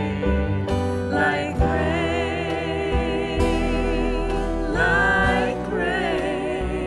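Live worship band playing a slow song with singers, their held notes wavering with vibrato over a steady bass line.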